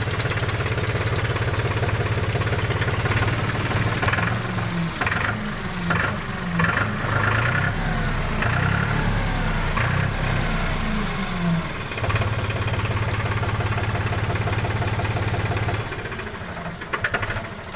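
Powertrac Euro 45 Plus tractor's diesel engine running at idle, its speed rising and falling for several seconds in the middle before settling back to a steady idle; the level drops near the end.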